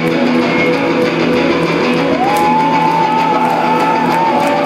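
Rock band playing live, loud, with electric guitar holding a sustained chord; about two seconds in a higher note slides up and is held until near the end.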